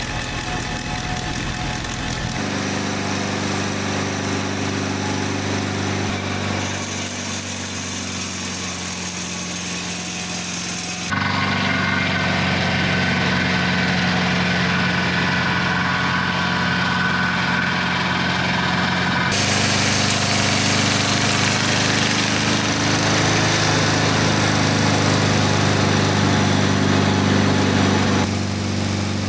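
Mobile dimensional sawmill's engine running steadily, with its circular blades turning. The sound changes abruptly several times, as between edited shots.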